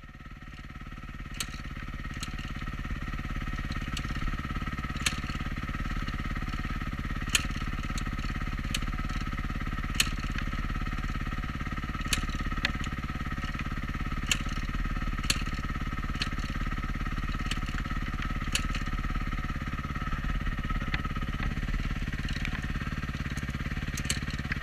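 Four-stroke dirt bike engine idling steadily, with sharp clicks every second or two.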